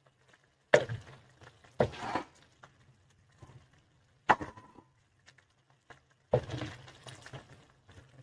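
A spatula stirring a thick pea-and-potato curry in a pan, knocking and scraping against the pan in four separate clatters, one of which leaves a brief ring. A faint low steady hum runs underneath.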